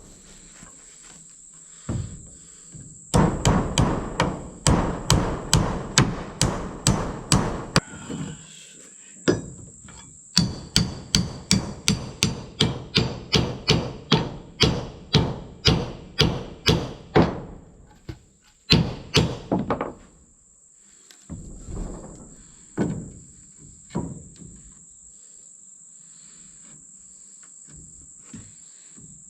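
Hammer blows on wood, in runs of sharp strikes at about two to three a second, broken by short pauses and a few single knocks near the end. A steady high insect buzz runs underneath.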